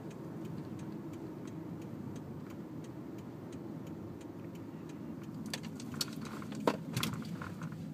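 Car's turn-signal indicator ticking evenly over the hum of the engine and road inside the cabin, with the signal on for a turn. A few louder knocks come near the end.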